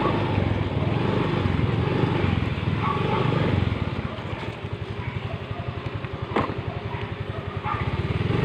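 A small engine running steadily, with a fast, even low pulsing that is clearest in the second half.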